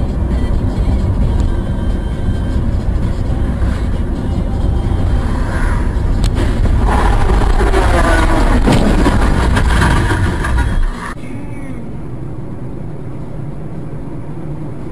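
Dash-cam audio of a moving vehicle: steady, loud road and engine rumble, with some brief sharp sounds and wavering higher tones in the middle. About eleven seconds in, it cuts abruptly to a quieter steady vehicle noise.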